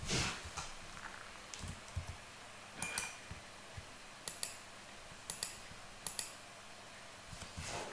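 Computer keyboard keystrokes and mouse clicks: scattered short clicks a second or so apart, some in quick pairs, as shortcuts are typed and items are selected.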